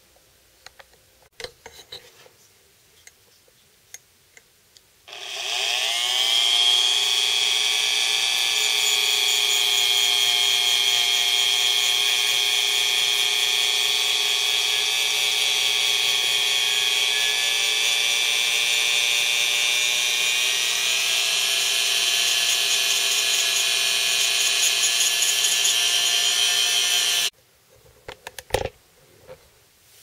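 Dremel rotary tool with a small wire-brush bit, spinning up about five seconds in and running at a steady high whine, dipping slightly in pitch as it is pressed against the steel knife blade to strip off the red nail-polish resist. It stops suddenly a few seconds before the end, with light handling clicks and taps before and after.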